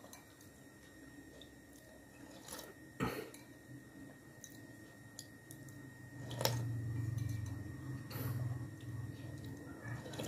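Eating rujak from a ceramic bowl with a metal spoon: a sharp clink of the spoon about three seconds in and another about six and a half seconds in, then a few seconds of louder sipping and wet chewing.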